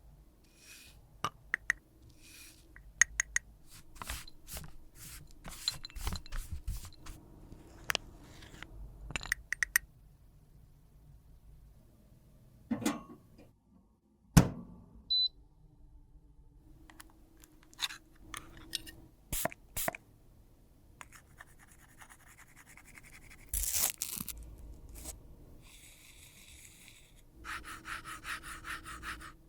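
Close-miked handling of makeup products and tools: many sharp clicks and taps with some scraping, one louder knock about halfway through, and a run of fast scratching near the end.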